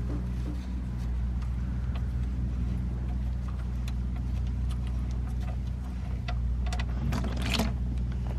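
Socket wrench on the oil drain plug of a 2015 Sprinter, clicking and scraping in a quick cluster about seven seconds in as the plug is worked loose. A steady low engine hum runs underneath.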